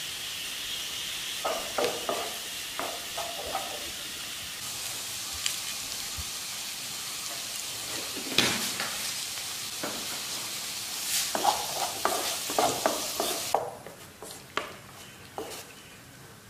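Chopped onions, carrots and tomato sizzling in oil in a non-stick frying pan, stirred and scraped with a wooden spatula in short bursts. The sizzle cuts off suddenly near the end, leaving only quieter stirring.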